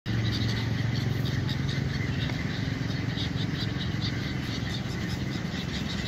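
A flock of gulls calling, many short high cries overlapping, over a steady low rumble of road traffic.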